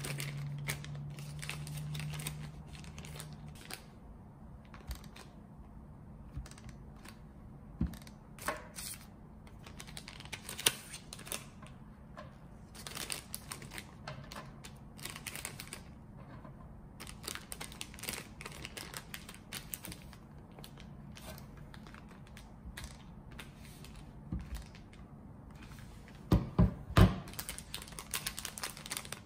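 Small frosted plastic cookie bags crinkling and rustling in the hands as cookies are slipped in and the bags are handled, in irregular crisp bursts. A few louder knocks come near the end.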